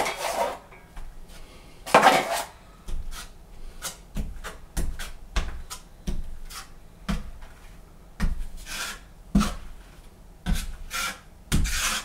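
Steel drywall knife scraping and clacking against the edge of a metal mud pan while loading joint compound, with strokes of the knife spreading compound on the wall between. Irregular short clacks with a few longer scrapes.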